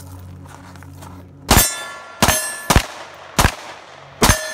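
Five 9mm pistol shots, beginning about a second and a half in, roughly two-thirds of a second apart. Several are followed by a clear ringing, the ring of a steel silhouette target being hit.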